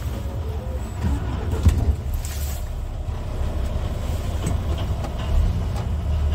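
Scania R tractor unit driving, heard from inside the cab: a steady low diesel drone with road noise. A few short light knocks and rattles come through, the sharpest about two seconds in.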